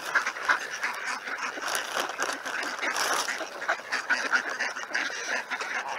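A flock of ducks quacking and calling over one another in a continuous, choppy chatter.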